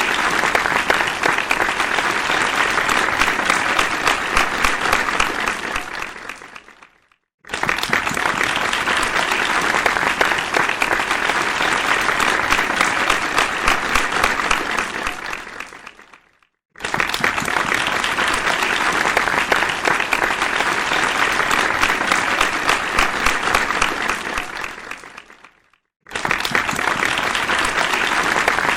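A crowd applauding in bursts of about nine seconds: each starts at full strength, dies away over a couple of seconds and breaks off into a brief silence, three times in a row.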